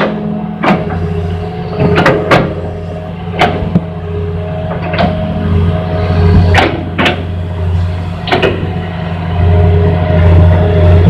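Hitachi Zaxis 210 MF excavator working in mud: its diesel engine drones steadily with a thin whine over it. Sharp metal clanks come about eight times, irregularly, as the bucket and boom work.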